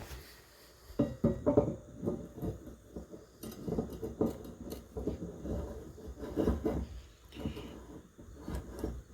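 Irregular clunks, knocks and light rattles of equipment being handled and set down, starting about a second in and going on in clusters.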